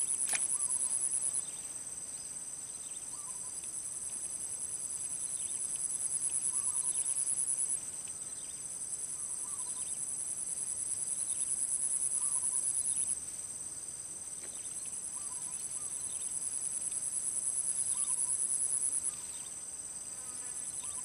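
High-pitched, pulsing insect song that comes in phrases of about five seconds. Each phrase swells and then cuts off, with a short gap before the next. Faint short calls sound underneath.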